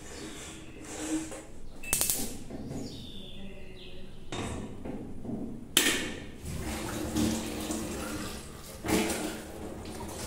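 Kitchen handling sounds: a stainless steel kettle being wiped and then set down on a gas stove grate with a sharp clank about six seconds in, followed by running water and plastic clatter at the sink.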